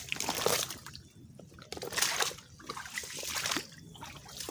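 Footsteps squelching and splashing through mud and shallow water in a mangrove creek bed, a few wet steps.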